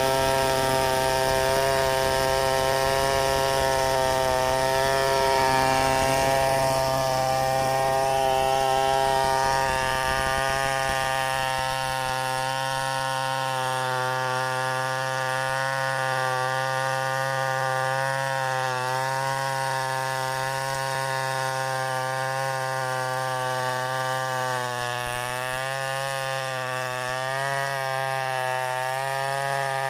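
Two-stroke chainsaw running flat out, cutting wood, its high engine pitch holding nearly steady and wavering slightly as the cut goes on.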